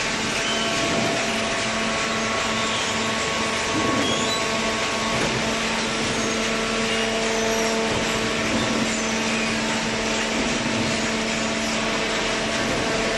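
Hydraulic baler machinery running steadily: a constant motor hum under a dense wash of mechanical noise.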